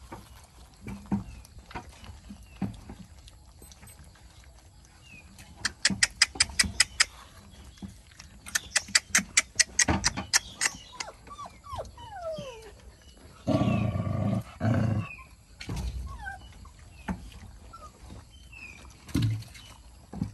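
Dogs eating from a plastic bowl: two runs of quick, regular lapping clicks, then a loud dog growl in two parts about two-thirds of the way through.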